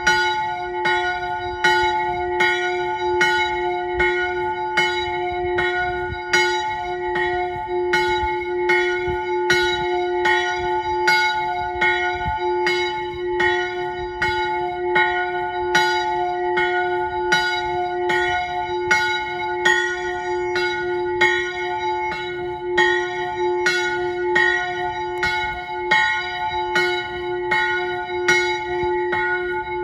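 Single chapel bell in a small roof turret swinging and ringing steadily, about three strokes every two seconds, its tone sustaining between strikes.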